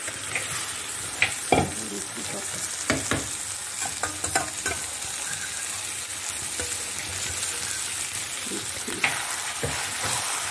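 Minced chicken keema sizzling as it fries in a pan, with a steady hiss. A utensil scrapes and knocks against the pan now and then as it is stirred.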